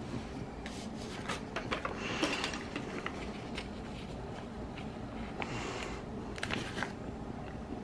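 Paper and sticker sheets being handled: light rustling with scattered small clicks and taps as stickers are placed in a planner, with two short bursts of rustling about two seconds in and again near six seconds.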